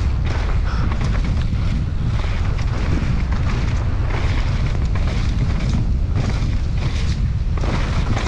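Wind buffeting an action camera's microphone during a fast mountain bike descent: a steady loud rumble, broken by frequent knocks and rattles from the bike over rough ground.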